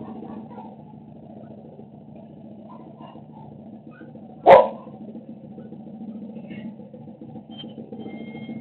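A single short dog bark about halfway through, over a steady low hum.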